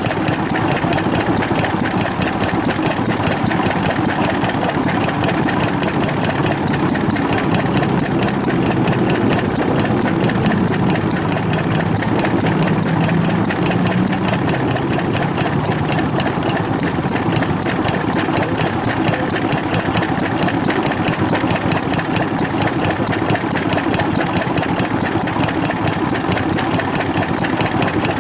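Vintage stationary farm engine (hatsudoki) running steadily with an even, rapid beat.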